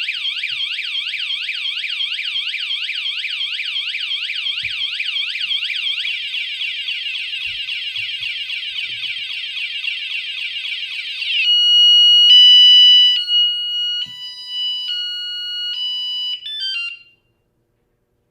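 Motion-activated wireless bike alarm sounding its siren: rapid up-and-down wailing sweeps, a faster warble from about six seconds in, then from about eleven seconds stepped beeps jumping between pitches, loudest just after the change, before cutting off near the end.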